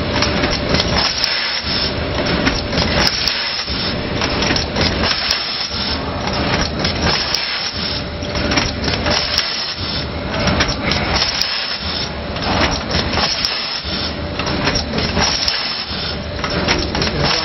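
Rotary pouch filling and sealing machine running, a steady mechanical clatter with small clicks that dips briefly about every two seconds as it cycles.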